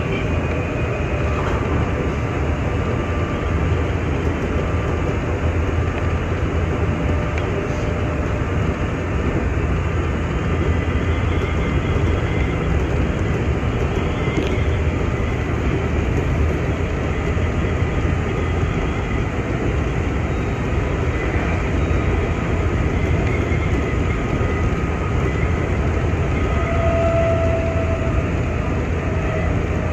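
Steady interior running noise of a Nankai 6000-series stainless-steel electric train in motion: a low rumble of wheels on rail and traction equipment, with a short higher tone near the end.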